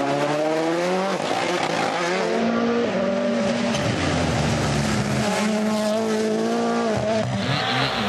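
Rally car engines at full throttle: the engine note climbs steeply, drops with gear changes, holds, then falls again near the end. There is some tyre squeal as the cars corner on tarmac.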